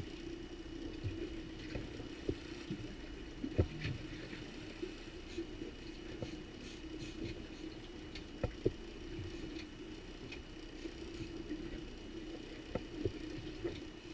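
Small outboard kicker motor running with a steady drone while water slaps against the boat's aluminium hull. Scattered sharp knocks and clicks come through, the loudest about four seconds in and again near eight and a half seconds.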